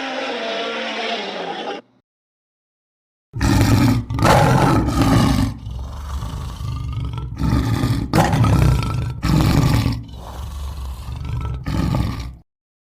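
Sound-effect roars of a prehistoric creature: after a short silence comes a string of deep roars and growls in several loud surges, which stops abruptly near the end. At the very start, the tail of a different, higher-pitched call dies away.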